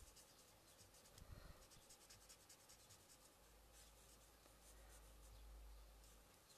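Faint scratching of a marker pen's nib stroking across card, in short strokes through the first second and a half and again about four seconds in, over a low room hum.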